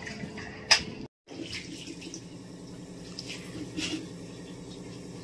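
Water running and splashing as boiled chow mein noodles are rinsed in cold water in a steel bowl, over the steady hum of a kitchen chimney (range-hood) fan, with a couple of sharp clinks.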